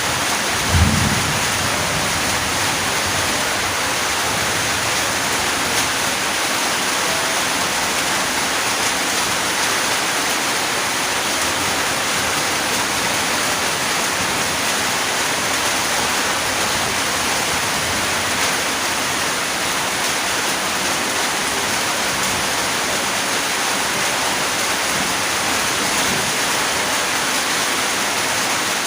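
Steady rain falling, a dense even hiss. About a second in there is a brief low rumble.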